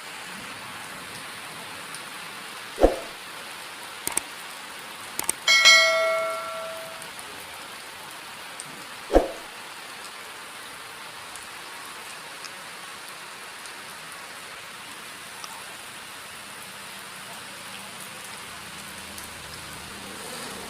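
Steady rain falling on plants, with two loud low thuds about three and nine seconds in and a few sharp clicks. Around six seconds a short metallic ring dies away over about a second.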